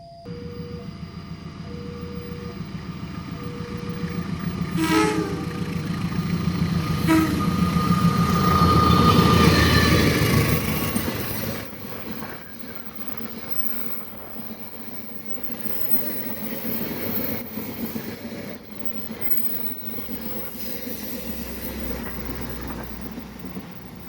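A train sounds its horn in two short blasts, about five and seven seconds in, as its rumble builds to a peak around nine to ten seconds. It then runs past with a steadier, quieter rumble of wheels on the rails.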